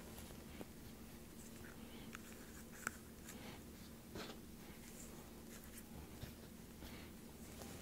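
Faint rustling and a few light clicks from flower stems and dried bunny tail grass being handled and tucked into a hand-held bouquet, over a steady low room hum.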